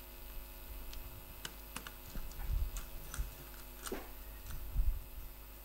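Scattered light clicks and taps of a screwdriver and wire at a distribution board's main switch terminal, with a few soft thumps, as a loose neutral wire is reattached.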